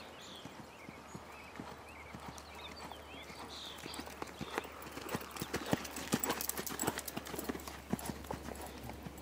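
Hoofbeats of a ridden horse moving over arena sand, growing louder as it comes close and passes about five to eight seconds in.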